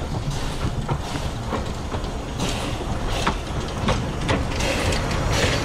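Narrow-gauge steam locomotive and its carriages rolling slowly into a station, with a steady rumble, hissing, and wheels clicking over the rail joints, getting a little louder as the train comes closer.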